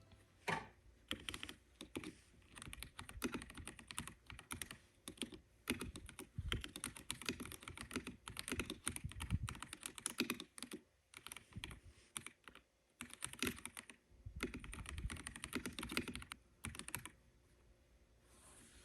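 Typing on a newly unboxed keyboard to hear how its keys sound: runs of rapid key clicks in bursts, with a few short pauses.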